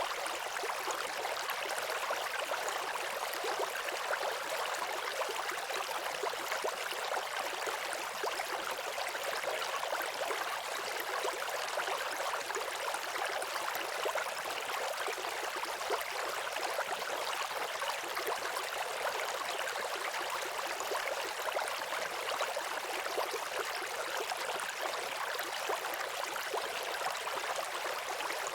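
Waterfall: a steady rush of falling water, an even hiss with almost no deep rumble.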